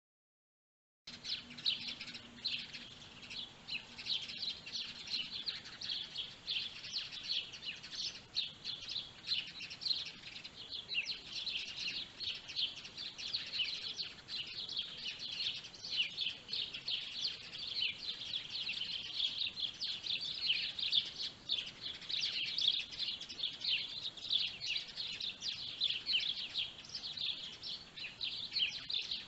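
Dense, continuous chorus of small birds chirping, many quick overlapping calls, starting about a second in.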